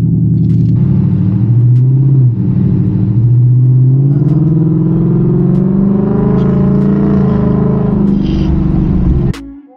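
Ford Mustang GT's V8 pulling away under acceleration, heard from inside the cabin: the revs climb, drop briefly at a gear change about two seconds in, then climb again and settle into a steady cruise. The sound cuts off suddenly near the end.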